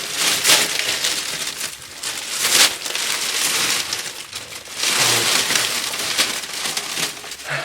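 Foley rustling of a bundle of grass being crushed and thrashed, performed as a body falling into tall cogon grass. Dense rustling with several heavier surges and crunches.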